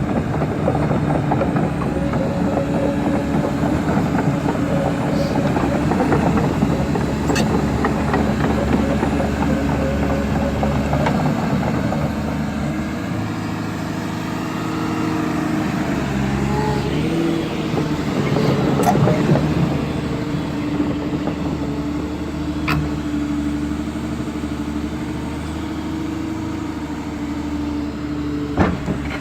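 Caterpillar 320D excavator's diesel engine running steadily under hydraulic work. Its note shifts about halfway through, and a few sharp knocks come through.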